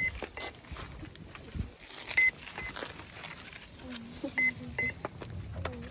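Short high electronic beeps, some single and some in quick pairs, every second or two, over low background noise.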